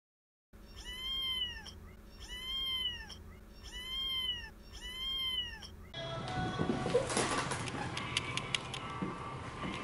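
A cat's meow sound effect played four times, evenly spaced; each is the same rise-and-fall call, so it is a repeated clip. From about six seconds in it gives way to room hiss with scattered clicks and taps.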